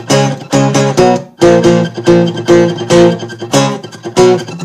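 Guitar strumming chords in a steady rhythm, about two strokes a second: the instrumental accompaniment of a song between sung lines.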